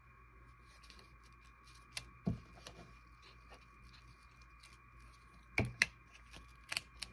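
Paper scraps and a glue stick being handled on a tabletop: a few soft knocks and clicks, the strongest about two seconds in and again near five and a half seconds, with lighter clicks near the end, over a faint steady hum.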